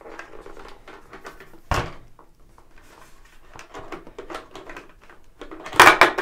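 Plastic clicks and rustling as the visor of an HJC motorcycle helmet is released from its side-plate pivot, with a sharp click a couple of seconds in and a louder plastic clatter near the end as the visor is worked free.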